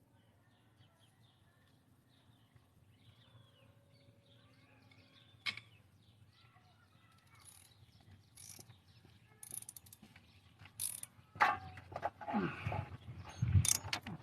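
Hand socket ratchet clicking in short runs, then harder strokes near the end, as cylinder head bolts are worked loose. Birds chirp faintly in the first few seconds.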